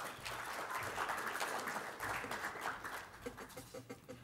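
Audience applauding, a dense patter of clapping that fades out after about three seconds.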